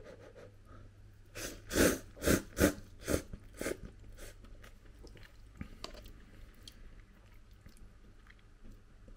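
A person slurping instant cup noodles off chopsticks in about six quick pulls within two seconds, followed by quieter chewing.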